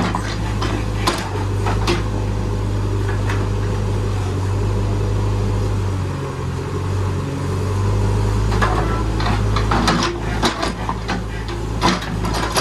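JCB backhoe loader's diesel engine running with a steady low drone that dips briefly about six seconds in, with scattered sharp knocks and clanks of the working machine, most of them in the last few seconds.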